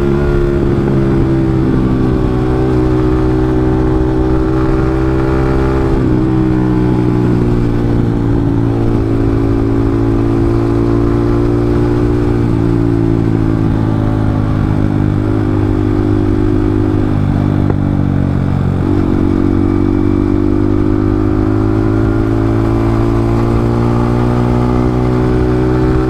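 Yamaha MT-15's 155 cc single-cylinder engine running through a loud exhaust while the bike cruises at about 50 km/h. The engine note dips a few times and picks up again.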